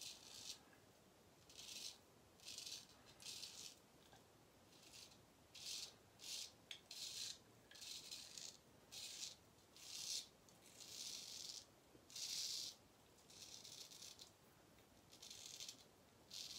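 Gold Dollar straight razor scraping stubble through shaving lather in a run of short, faint rasping strokes, about one or two a second.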